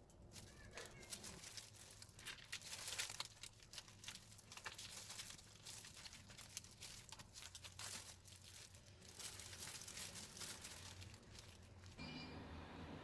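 Faint crinkling and rustling with many small clicks, as of something crinkly being handled, stopping about twelve seconds in, where a steady low hum takes over.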